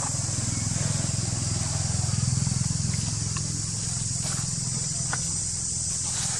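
Steady high-pitched insect drone over a low, steady rumble, with a few faint clicks about three to five seconds in.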